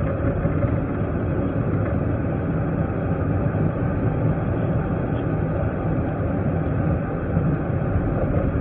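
Steady engine and road noise heard from inside a moving car's cabin, an even low rumble with no sudden sounds.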